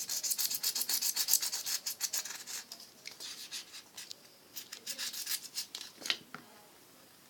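A piece of styrofoam being rubbed and crumbled by hand, a fast scratchy rasping that makes a lot of noise. It thins out after about three seconds into scattered scrapes and clicks and stops about six and a half seconds in.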